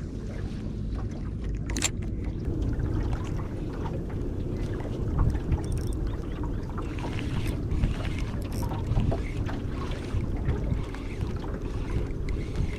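Steady wind buffeting the microphone and water slapping against a small aluminium boat's hull, with a sharp click about two seconds in.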